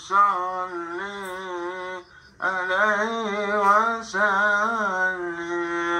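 A voice recording of singing played back from a phone over Bluetooth through a small audio mixer and loudspeaker. Long held notes waver in pitch, in phrases broken by a short pause about two seconds in.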